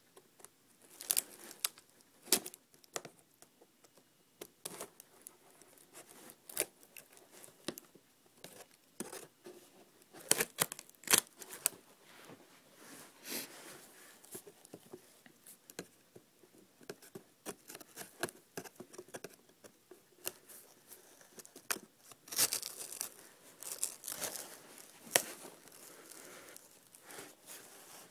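A folding rescue knife cutting and slitting packing tape and cardboard on a shipping box, in irregular short scrapes and rips with pauses between.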